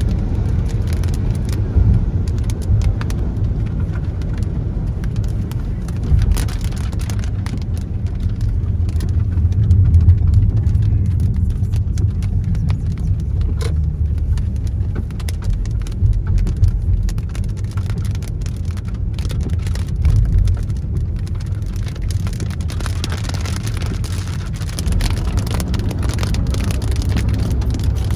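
Inside a moving car in heavy rain: the steady low rumble of the car and its tyres on the wet road, with scattered clicks of raindrops hitting the windscreen.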